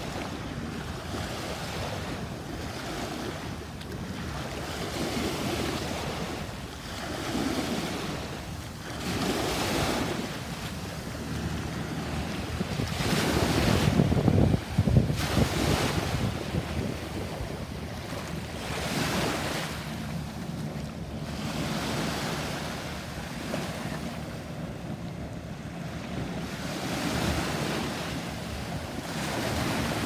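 Small waves breaking and washing up the sand in shallow water, swelling and ebbing every few seconds, with wind buffeting the microphone. The loudest surge comes about halfway through.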